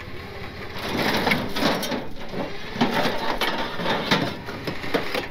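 Steady, irregular scraping and crunching of a locked-up International Travelette crew-cab pickup being dragged by a winch up steel trailer ramps, its tires sliding rather than turning and its exhaust pipe grinding against the ramp ribs as it is torn loose.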